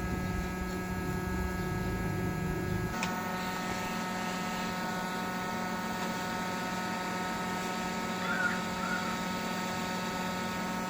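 Hot-air rework station's blower running with a steady electric hum, air rushing over it until a click about three seconds in.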